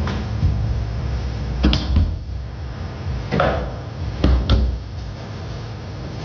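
Tornado foosball table in play: about six sharp, uneven clacks of the ball being struck and knocked around, with pairs of louder hits near 2 seconds and 4.5 seconds, over a low rumble.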